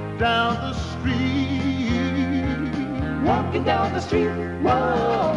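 A recorded song in an instrumental stretch between sung lines: full band with sustained bass notes and a wavering lead melody line.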